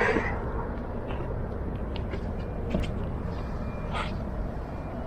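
Outdoor harbour ambience: a steady low rumble with a few short clicks and brief high-pitched calls scattered over it.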